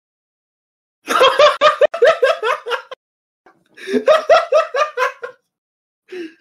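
A person laughing hard in two bouts, the first starting about a second in and the second around four seconds, each a quick run of high-pitched ha-ha pulses.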